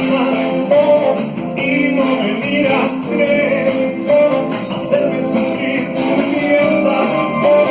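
Live band playing an upbeat rock-and-roll-style song, with guitars, tambourine and a steady rhythm section.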